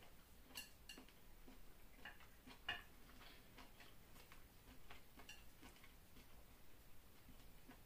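Near silence broken by a few faint, scattered clicks and taps: chopsticks touching a plate while picking up food.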